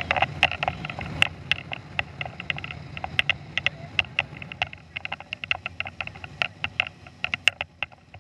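Pontoon boat under way: a rapid, irregular patter of sharp slaps and ticks over a low steady rumble.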